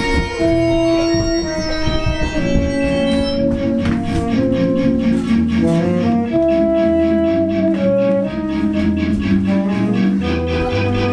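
Instrumental music: held chords over a bass line that steps from note to note, with no singing.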